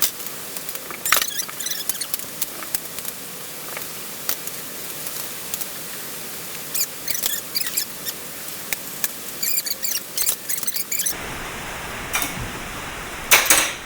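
Ratchet and torque wrench clicking while the crane's mounting bolts are tightened, in short runs of quick clicks, with a louder metallic clatter near the end.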